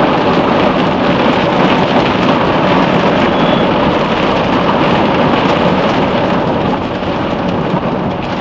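Heavy rain and hail falling on a car's roof and windscreen, heard from inside the cabin as a loud, steady noise.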